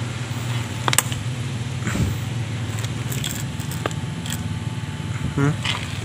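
A steady low mechanical hum, with a few scattered light clicks and rattles as a worn, stiff motorcycle clutch cable is handled.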